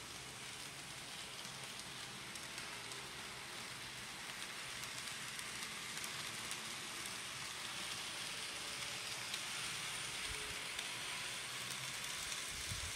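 Bachmann N-scale model trains running on Kato track: a steady, fine rattling hiss of small metal wheels on rail and the locomotive motors, growing a little louder toward the end.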